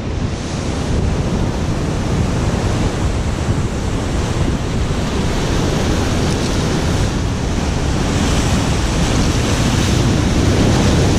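Rough surf surging and breaking over the concrete blocks of a breakwater, with wind buffeting the microphone. A steady, heavy wash that grows a little louder in the second half.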